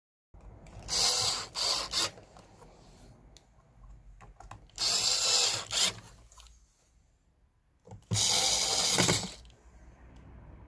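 Cordless electric screwdriver driving screws into a plastic speedometer cluster housing, in three short runs of about a second each, the first broken briefly in two.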